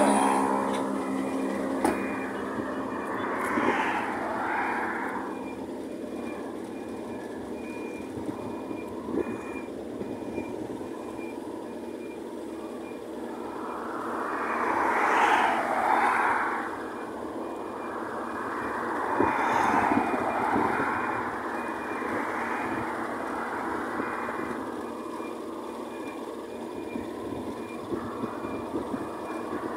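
Tow truck's warning beeper sounding a steady, evenly spaced series of short high beeps over a low engine hum. Vehicles pass on the road several times, the loudest about halfway through.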